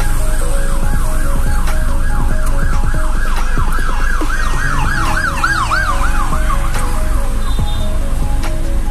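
Emergency-vehicle siren in a fast yelp, sweeping up and down about three or four times a second. It grows louder toward the middle and fades out about three-quarters of the way through, with background music playing underneath.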